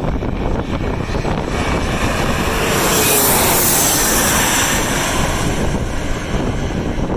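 Airliner passing low overhead on landing approach, swelling to its loudest about halfway through with its pitch falling as it goes by, while strong wind buffets the microphone.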